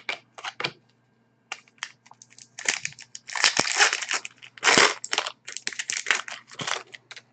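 Trading card pack wrapper being crinkled and crumpled by hand: a few light clicks, then a long stretch of dense crackling in quick bursts, loudest around the middle.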